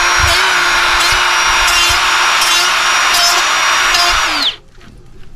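Ryobi right angle die grinder running and grinding with a steady high whine, switched off about four and a half seconds in, its pitch dropping quickly as it stops.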